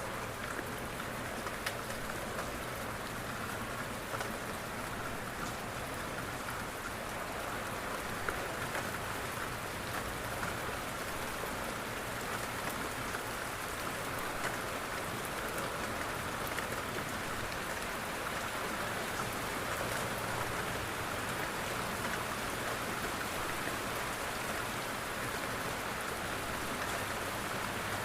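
Steady rain falling on a window, a constant hiss dotted with many small drop ticks.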